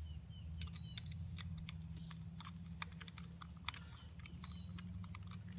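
Irregular light clicks and taps of a screwdriver and small metal parts as a screw is driven into an outboard motor's carburetor during reassembly, over a low steady hum.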